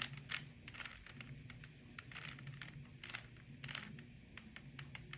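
Rubik's Cube faces being turned by hand, a run of irregular light plastic clicks as the layers snap round.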